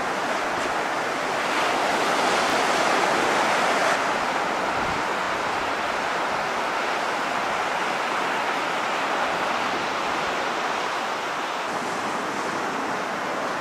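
Ocean surf breaking and washing up a sandy beach in a steady roar of waves, with wind blowing over it.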